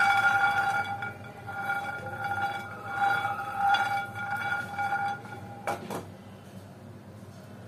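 Peanuts rolling and rattling in a non-stick frying pan as it is shaken back and forth, the pan ringing in swells about once every 0.7 s. A couple of sharp knocks about six seconds in as the shaking stops.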